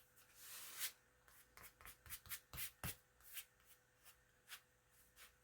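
Faint rustle of paper being handled, then a scatter of light taps and ticks as paper is moved and set down.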